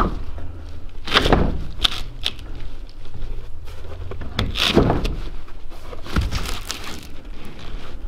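OSB boards being handled against a wooden shack wall, scraping and knocking in a few separate bursts over a low rumble.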